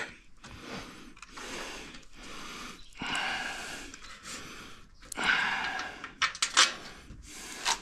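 A man breathing heavily and audibly, about six breaths in and out, with a few light clicks about six seconds in.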